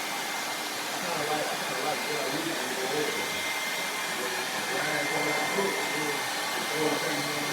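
Steady blower noise, an even rushing hiss with a thin high whine running through it, like a small electric blower motor pushing air. Faint muffled voices sit underneath.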